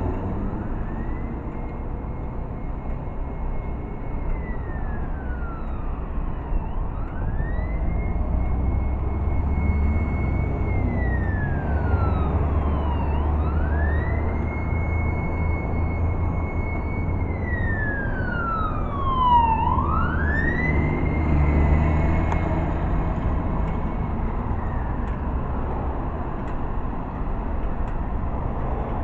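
Fire truck siren on a slow wail: four cycles, each rising quickly to a high held tone and then sliding down, about every six seconds. It is loudest at the third fall about two-thirds through, and fades out near the end. Steady road traffic and engine rumble run underneath.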